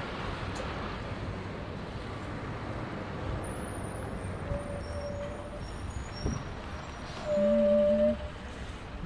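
Outdoor street ambience: a steady wash of traffic and wind noise, with faint high chirps in the middle and a loud pitched tone lasting about a second near the end.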